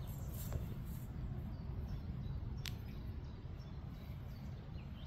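Low, gusty rumble of wind on the microphone with faint bird chirps, and a sharp click about two and a half seconds in; the handpan is not yet being played.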